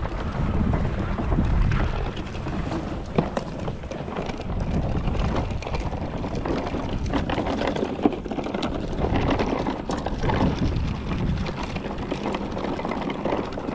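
Wind rumbling on the microphone over the rolling clatter of wheeled plastic coolers pulled along a dirt track, with scattered sharp clicks and knocks.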